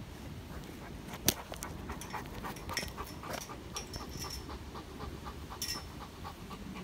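Dogo Argentino panting quickly and rhythmically with its tongue out, a few breaths a second. A single sharp click sounds about a second in.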